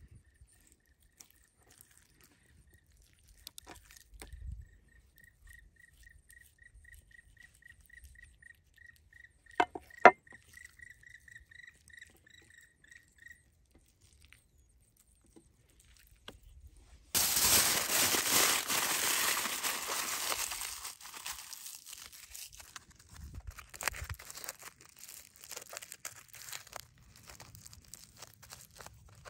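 Aluminium foil crinkling and tearing. It starts suddenly a little past halfway, loud at first, and fades over a few seconds into lighter crinkling as the foil is handled. Earlier comes a sharp double knock on the wooden cutting board.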